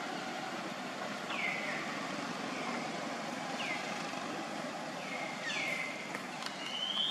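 An animal calling over steady background noise: a short whistled call falling in pitch, repeated about once a second, with a longer held note near the end.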